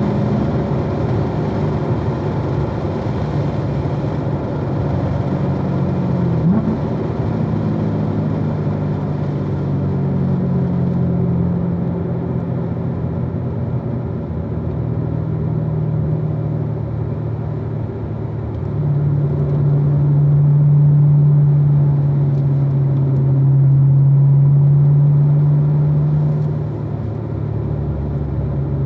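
2016 Corvette Z06's supercharged 6.2-litre LT4 V8 running hard on a race track, its pitch shifting with throttle and gears, with a quick upward blip about six seconds in. It gets louder and holds a steady note through a stretch in the second half.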